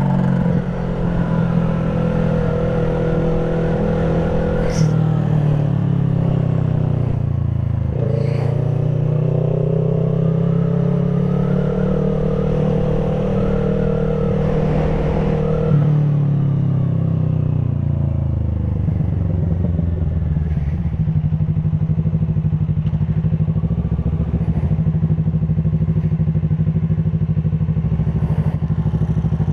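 Motorcycle engine running under way. The revs dip about five seconds in, climb slowly for several seconds, fall away about sixteen seconds in, and then settle into a steady, even run.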